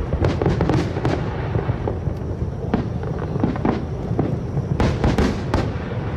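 Aerial fireworks display: a continuous low rumble of many overlapping bursts, with clusters of sharp bangs in the first second and again about five seconds in.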